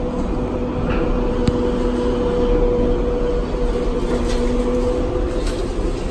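Interior of an R142A subway car running between stations: a steady rumble of wheels on rail with a constant whine, and a sharp click about a second and a half in.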